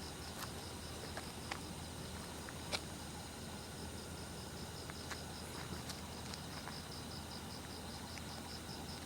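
An insect chirping steadily in a high, even pulse of about four chirps a second, over a faint steady background hiss. A few faint clicks, the sharpest about three seconds in.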